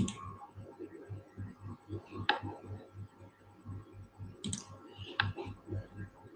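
Computer mouse clicks: four sharp clicks a second or two apart over a faint low pulsing hum.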